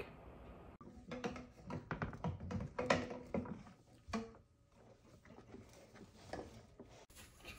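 Quiet knocks, taps and scratches of a gerbil moving about in a plastic bin cage and climbing into a PVC pipe tunnel.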